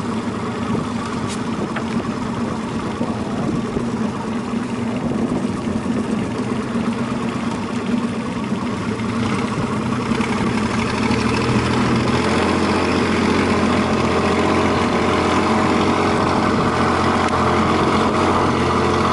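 A boat's engine running steadily, its drone growing louder and fuller about halfway through as it picks up revs.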